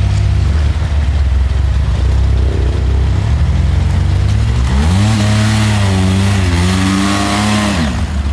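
Side-by-side UTV engine pulling through deep mud. It runs steady at first, then revs up about halfway through and holds high, wavering revs while the tyres churn and throw mud, before dropping back near the end.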